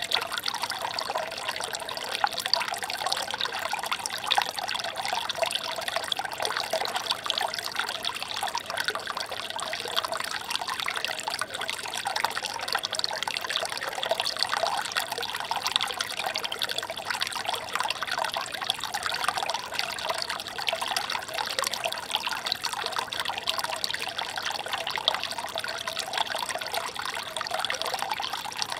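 Shallow stream trickling over stones and leaf litter, a steady, gentle burble of many small splashes.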